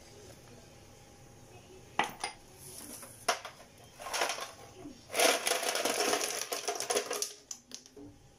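Ice cubes clattering into a plastic blender jar as they are tipped from a plastic tub: a few sharp knocks first, then about two seconds of dense rattling near the end.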